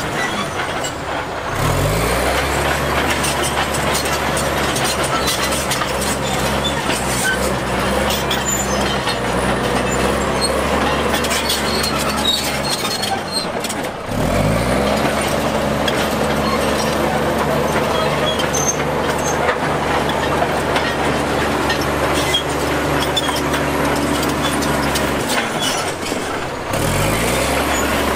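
Heavy diesel engine of earthmoving machinery revving up and then running steadily under load. This happens three times: about a second and a half in, about fourteen seconds in, and near the end, each time after a brief dip.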